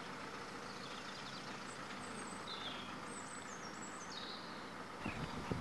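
Quiet outdoor ambience: a steady background hum with several faint, high bird chirps. A few soft bumps come near the end.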